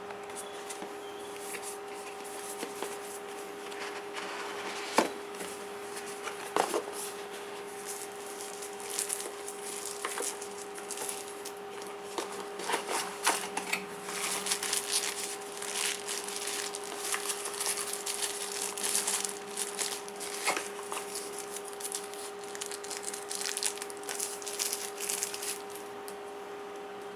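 Hands handling a phone's retail box and packaging: scattered clicks, taps and crinkling of cardboard and plastic, with a few sharper knocks early on, over a steady electrical hum.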